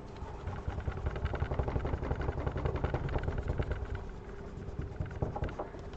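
Rapid scratchy rubbing of a phone's plastic back cover being wiped down with isopropyl alcohol to clear leftover adhesive and oils. It is loudest through the first few seconds and eases off near the end.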